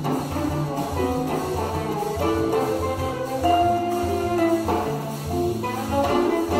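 Live instrumental choro played by a trio of cello, acoustic guitar and drum kit: held melodic notes over a steady rhythmic pulse.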